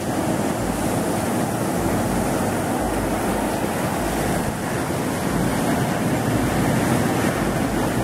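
Ocean surf breaking over rocks and washing up the sand: a steady, unbroken rush of waves.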